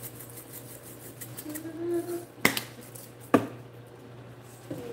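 Red pepper flakes rattling in a plastic shaker bottle as it is shaken over a bowl, a fast run of light ticks that dies away after about a second, followed by two sharp clicks about a second apart.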